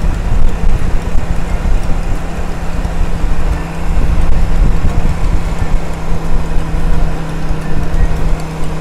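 Cruiser-style motorcycle engine running at a steady pace while riding, its note holding constant with no revving. Heavy low rumble of wind buffeting is underneath.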